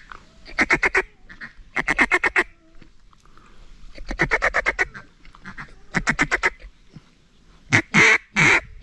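Ducks quacking in rapid runs of five to eight quick notes, repeated several times, with two louder, longer calls near the end.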